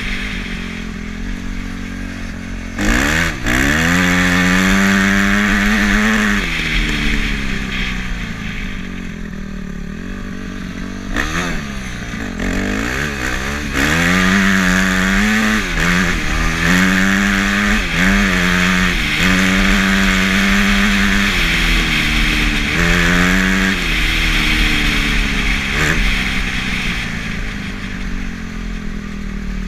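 Small off-road vehicle engine under way on a dirt trail, its revs climbing hard about three seconds in, then rising and falling repeatedly as it accelerates and changes gear.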